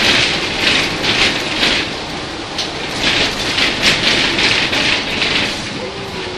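Interior running noise of a 1991 Ikarus 280 articulated bus with its Rába D10 diesel, heard from on board: a steady rumble overlaid with irregular bursts of rattling and clatter, a few a second. The bursts thin out and the noise eases a little near the end.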